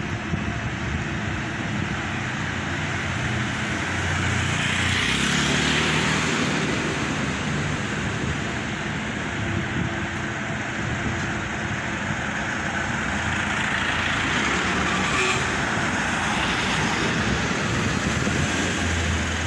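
Street traffic: motor vehicles passing close by. The engine and tyre noise swells as one goes past about five seconds in, and again around fifteen seconds.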